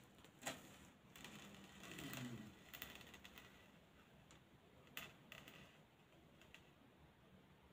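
Near silence with faint handling noises: a soft rustle in the first few seconds and a few light clicks, the two sharpest about half a second in and about five seconds in.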